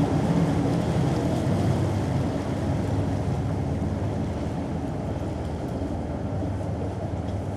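A large vehicle's engine rumbling low and steady, slowly fading as it moves away.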